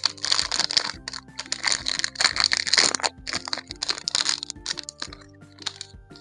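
Plastic toy packaging crinkling and crackling as it is handled, in several irregular bursts that die away near the end, over soft background music.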